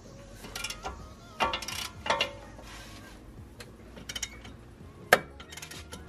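Socket ratchet clicking in short bursts as the 18 mm caliper mounting bolt behind a Brembo front brake caliper is backed out.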